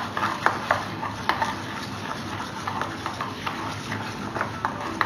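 A spoon stirring thick gram-flour (besan) pakora batter in a stainless steel bowl, clicking against the bowl's sides in an uneven run of about two or three light knocks a second.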